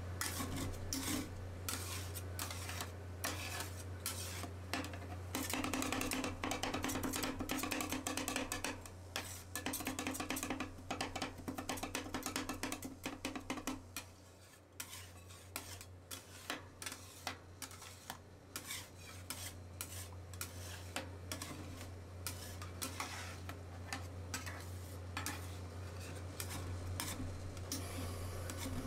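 Two metal spatulas chopping and scraping Oreo cookie pieces into liquid cream on a stainless steel ice cream pan: a rapid, irregular run of clinks and scrapes, busiest in the first half and lighter after a brief lull about halfway through, over a steady low hum.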